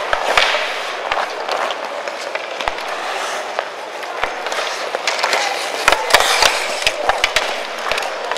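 Ice hockey skates scraping and carving on the ice, with sticks clacking against the ice and puck; a flurry of sharp clacks comes near the end.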